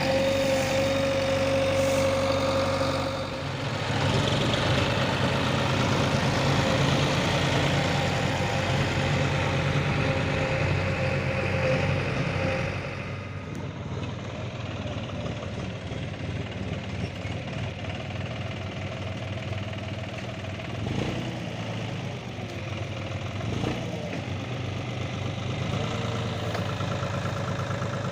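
Heavy machine engine running steadily, louder and busier for the first half, then settling to a lower, quieter run, with a couple of brief rises near the end.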